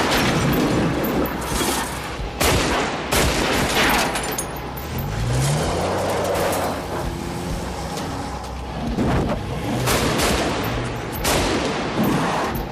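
Scattered gunshots, some close together, with a vehicle engine revving up about five seconds in.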